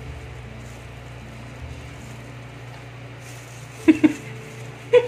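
A plastic drinking glass pressed into mashed potato balls on a metal baking pan, knocking sharply twice against the pan about four seconds in and once more near the end, over a steady low hum.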